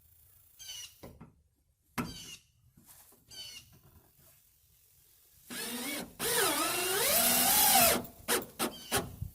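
Power drill driving a self-drilling screw into a metal door, about two and a half seconds of motor whine whose pitch sags and recovers as the screw bites, then a few short clicks. Faint handling sounds come before it.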